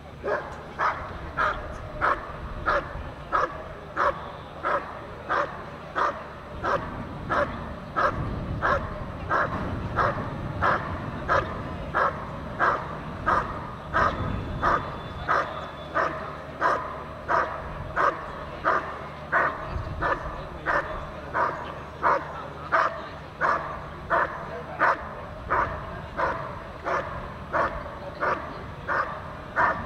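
Working dog barking steadily at a helper in a hiding blind: the IPO protection-phase hold and bark, where the dog has found the helper and guards him by barking without biting. The barks are short and evenly spaced, about three every two seconds.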